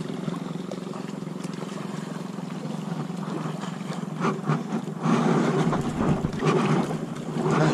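Steady engine drone of a motorboat. From about five seconds in, water splashing and handling noise grow louder over it.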